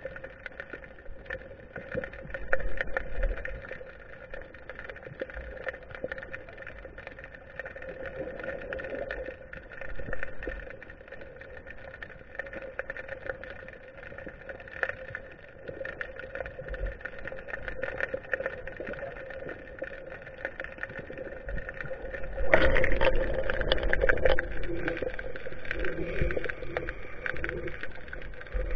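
Muffled underwater sound picked up by a GoPro in its waterproof housing: a steady hum under a wash of water noise with scattered faint knocks. About three-quarters of the way through it turns louder and rougher.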